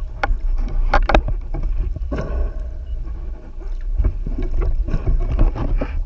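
Underwater sound picked up by a speargun-mounted camera: a steady low rush of water moving over the housing, with scattered sharp clicks and knocks from the gun and gear.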